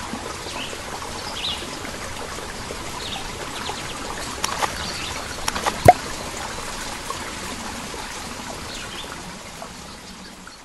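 Steadily trickling, flowing water with scattered bird chirps, fading out near the end. One sharp, loud click about six seconds in.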